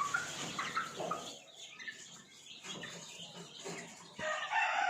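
Aseel chickens clucking in short scattered calls; a louder, longer call begins about four seconds in.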